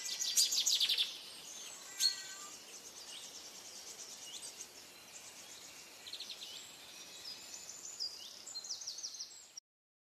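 Several forest birds calling and chirping over a faint steady background rush, the busiest stretch a rapid run of trilled notes in the first second and a sharp call at about two seconds. The recording cuts off abruptly shortly before the end.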